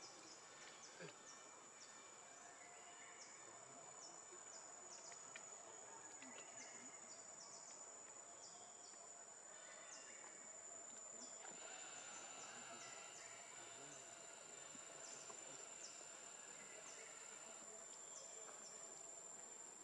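Near silence: faint outdoor ambience with a steady high-pitched insect drone and scattered faint ticks.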